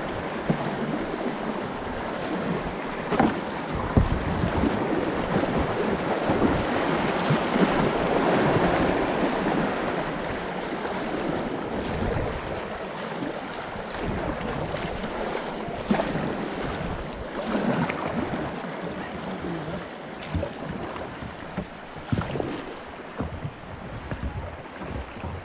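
River whitewater rushing around a kayak on a rapid, with occasional paddle splashes. The rushing is loudest in the middle and grows quieter near the end as the kayak reaches calmer water.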